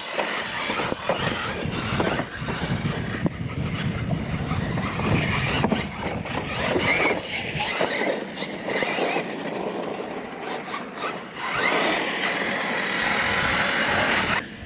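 Losi LMT radio-controlled monster trucks racing on dirt: their brushless electric motors whine, rising and falling in pitch as they accelerate and let off, over tyre and chassis noise. Near the end a steady whine as a truck passes close.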